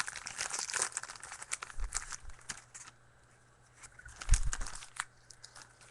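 Trading card pack wrapper crinkling and crackling as it is torn open and the cards inside are handled, with a dull thump about four seconds in.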